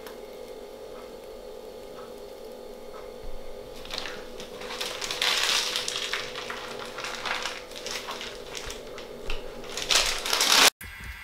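Irregular crinkling and rustling of a plastic piping bag being squeezed and handled, starting about three seconds in and loudest near the end, over a steady electrical hum.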